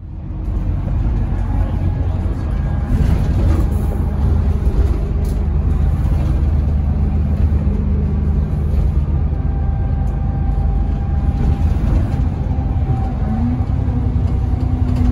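Alexander Dennis Enviro 400 double-decker bus heard from inside the lower deck on the move: a steady engine and road rumble, with the engine note climbing near the end as the bus picks up speed.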